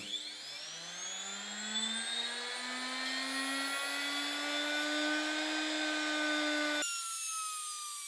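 Bosch 1BA6765-0EC washing-machine brushed motor, run straight off 220 V mains, spinning up with a whine that rises steadily in pitch over a steady hiss and then levels off. Nearly seven seconds in the power is cut: the hiss stops at once and the whine falls away as the motor coasts down.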